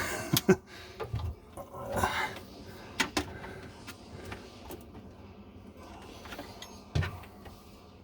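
Metal clicks, knocks and brief scraping as screws are worked into a garbage disposal's mounting ring, with the screws binding and hard to turn. The clicks come irregularly, with a louder knock near the end.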